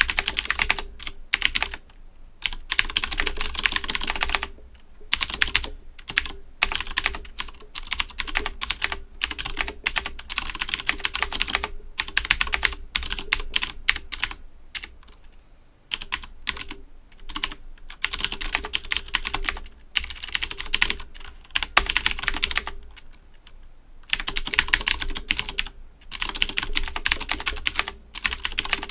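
Typing on an Owltech OWL-KB109BM II mechanical keyboard with Cherry MX Blue switches: fast runs of clicky keystrokes, broken by short pauses every few seconds.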